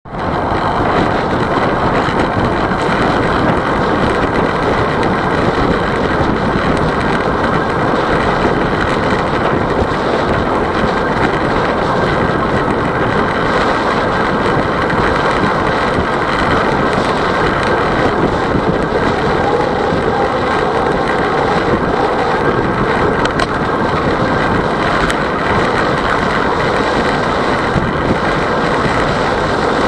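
Steady wind rushing over the microphone of a camera on a moving road bicycle, mixed with road noise.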